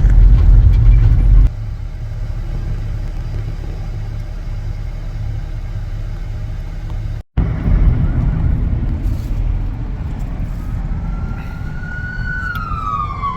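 Steady low road and engine rumble of a car being driven, louder for the first second and a half, with a brief dropout about seven seconds in. Near the end an emergency-vehicle siren starts up, its wail rising slightly and then falling in pitch.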